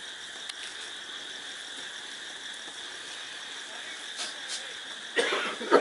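Steady high chirring of night insects throughout, with a few soft clicks and a brief louder rustle and clatter about five seconds in.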